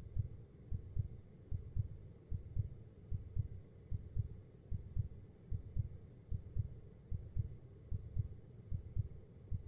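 Heartbeat sound effect: a slow, steady lub-dub of paired low thumps, about one beat every 0.8 seconds.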